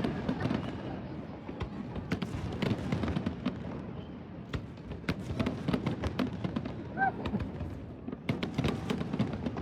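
Fireworks going off in many sharp, irregular cracks and pops, a few bunched together near the end.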